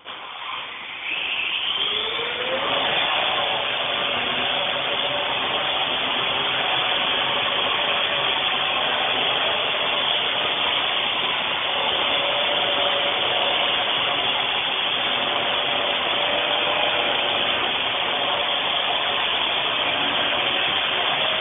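Parrot AR.Drone quadcopter's four electric motors and propellers spinning up for takeoff, the pitch rising over the first couple of seconds, then a steady loud buzzing whine as it hovers carrying the extra weight of a GoPro camera.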